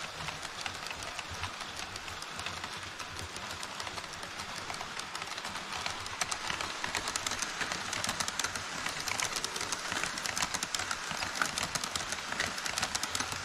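HO-scale model trains running over a model truss bridge: a dense, rapid clicking of small wheels over the track joints above a steady rolling hiss, getting busier and louder about six seconds in.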